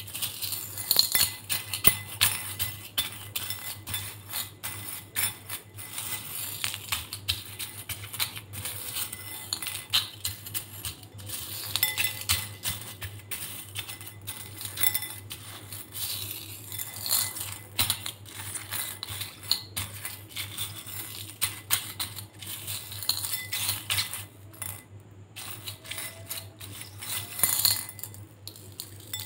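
Small beads being stirred by hand through slime in a glass bowl: dense, irregular clicking and clinking of the beads against the glass and each other.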